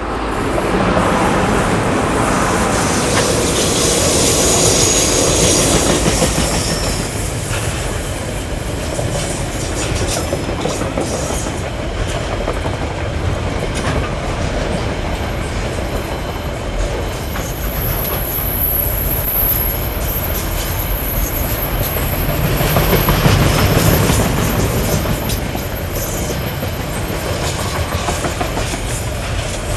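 KiwiRail freight train led by EF-class electric locomotives rolling past, wheels clacking over rail joints with a steady rumble. A high-pitched wheel squeal comes in about halfway through and lasts several seconds.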